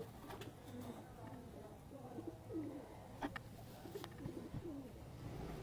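Domestic pigeons cooing softly, several low coos that swoop in pitch, with a few faint clicks in between.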